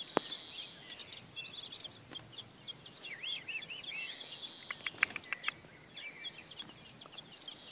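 Mistle thrush nestlings begging in the nest: thin, high-pitched cheeping calls and a steady high note that comes and goes, with a few sharp clicks in between.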